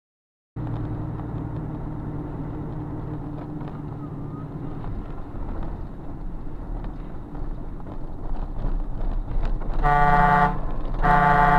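Steady vehicle running and road noise, then a car horn blasting twice near the end, each blast about half a second long.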